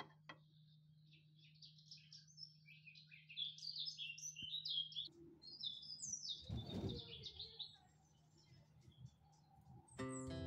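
Small birds chirping and twittering in quick runs of high notes, dying away after about seven seconds. A brief rushing whoosh sounds about two-thirds of the way through.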